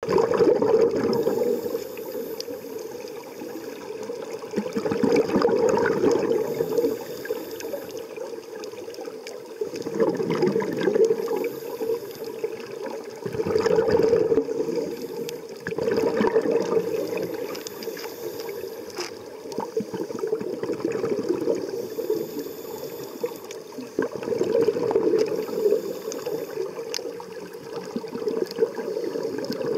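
Scuba divers breathing through their regulators, heard underwater: exhaled bubbles gurgle in loud bursts every few seconds, with a faint high hiss between them.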